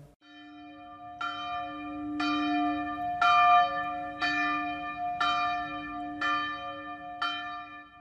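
A single bell tolling about once a second, each strike ringing on into the next.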